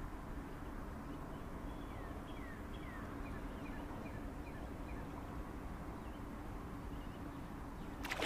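Quiet river ambience with a faint steady hum and a bird's run of short, quickly falling chirps in the middle. Near the end a sudden loud splash as a blue catfish held at the side of the boat thrashes in the water on release.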